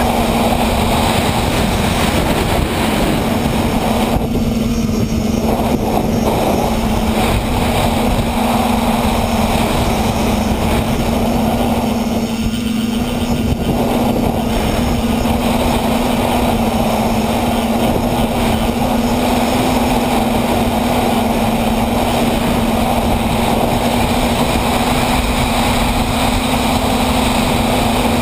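Brushless electric motors and propellers of an FPV tricopter running in flight, heard from the camera mounted on the craft: a steady hum with a rushing hiss of prop wash and air over it, the hiss easing briefly twice.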